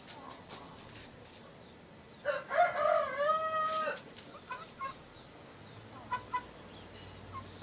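Village chicken rooster crowing once, a call of nearly two seconds beginning a little over two seconds in, followed by a few short, soft clucks.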